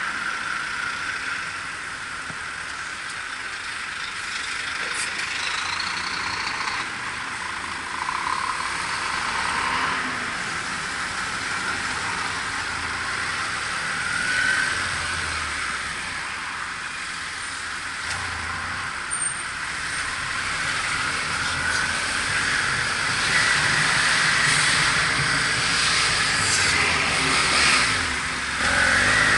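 A BMW F700GS motorcycle on the move in traffic, heard from a helmet-mounted action camera: a steady rush of wind and road noise with vehicles around it, growing louder over the last few seconds.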